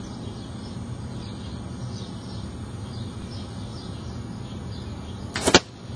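A vane-fletched aluminum arrow tipped with a broadhead, shot from a bow. About five and a half seconds in comes a brief loud whoosh that builds over a fraction of a second and cuts off sharply, the arrow's flight noise with its vane flutter. Small bird chirps repeat in the background.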